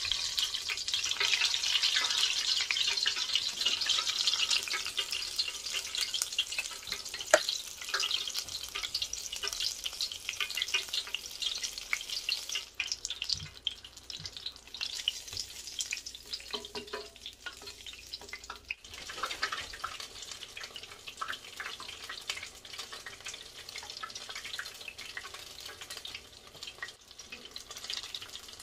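A flour-tortilla chimichanga deep-frying in hot oil in an electric deep fryer. A dense crackling sizzle starts as the basket goes in, is loudest for the first several seconds, then settles to a lower sizzle. There is one sharp click about seven seconds in.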